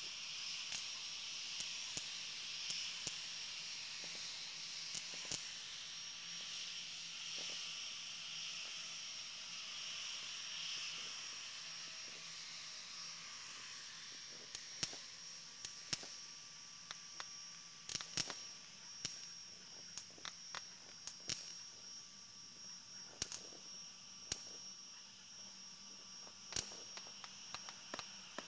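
Fireworks and firecrackers going off, heard as scattered sharp pops and cracks that come thicker in the second half, over a steady high hiss.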